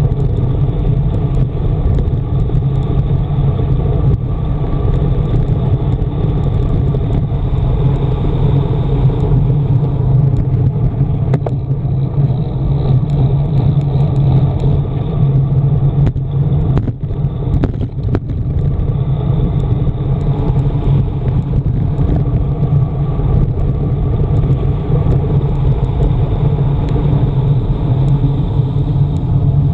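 Wind buffeting the microphone of a camera mounted on a road bike descending at speed: a loud, steady low rumble that dips briefly a little past halfway.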